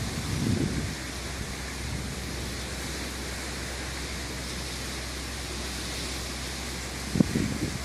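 Steady rushing of sea waves and wind along the shore, with low rumbles of wind buffeting the microphone about half a second in and again near the end.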